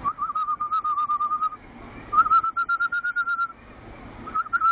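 A trilled, warbling whistle held near one pitch, sounded in three phrases with short gaps between them.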